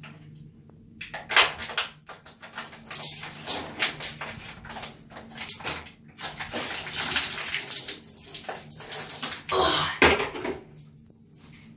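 Water sloshing and splashing as a child gulps down a small plastic bottle of water, with a run of sharp crackles throughout. A louder burst comes near the end.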